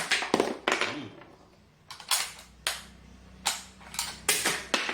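Firearm being handled: a series of about nine sharp metallic clicks and clacks, several in quick pairs, as the action and safety are worked by hand.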